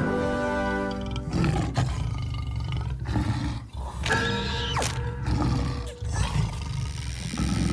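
Cartoon soundtrack: a deep, continuous rumbling roar runs under music, with a cartoon lizard's held, wordless yell at the start and a second scream about four seconds in.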